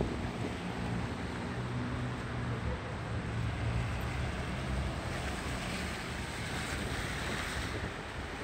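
Outdoor storm noise on a phone microphone: a steady rushing hiss of wind with a low hum of traffic underneath. A swell of brighter hiss comes in about halfway through and fades near the end.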